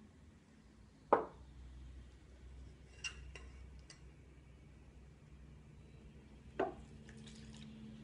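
Small metal cylinders knocking down onto the floor of a clear tank, once about a second in and again at about six and a half seconds, with a few light metallic clinks of the cylinders touching in between.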